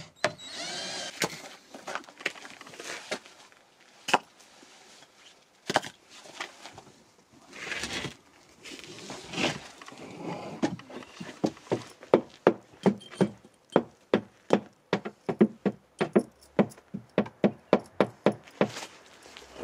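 Hammer blows on wood: a few scattered knocks at first, then a quick steady run of strikes, about three a second, through the last several seconds.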